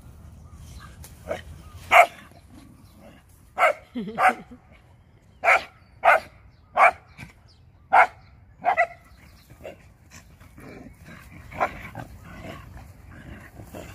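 Dog barking about ten times in short, sharp, irregularly spaced barks, louder around two and eight seconds in and thinning out near the end.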